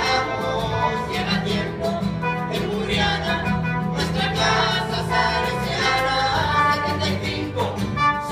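Live band music: a pop-style anthem played by brass, saxophone, keyboard, electric bass and acoustic guitar, with voices singing along.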